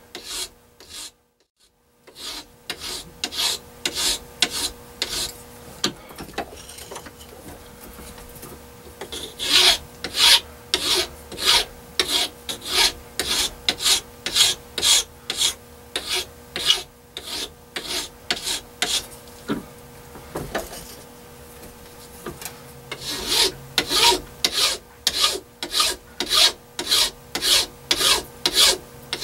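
Fine-cut hand file drawn in steady strokes across the edge of a metal plate held in a bench vise, smoothing away saw and coarse-file marks. The strokes start about two seconds in and come at about one and a half a second, louder in stretches.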